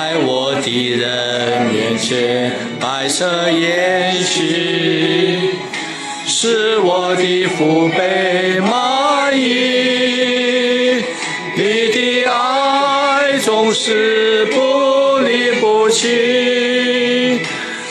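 A small group of men and women singing a Chinese worship song together, in long held phrases with short breaks between lines.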